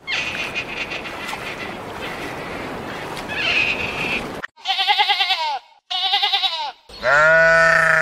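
Sheep bleating three times in quick succession, each call quavering: two shorter, higher bleats, then a longer, lower, louder one near the end. Before them comes a steady rushing noise with a few faint high squeaks.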